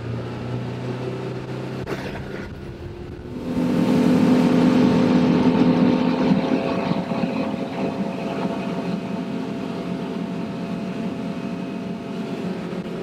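Mercury 90 hp EFI four-stroke outboard accelerating a boat onto the plane from about 1500 rpm. It gets much louder about three and a half seconds in as the throttle opens, then runs at high revs near full throttle, with wind and water rushing past the hull.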